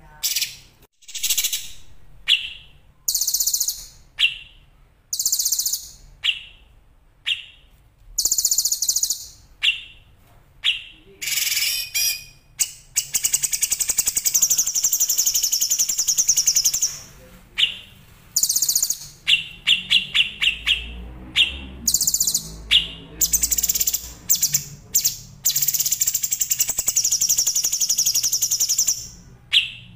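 Songbirds singing: bursts of sharp, high chirps and rattling notes, with long, very rapid trills held for several seconds in the middle and again near the end.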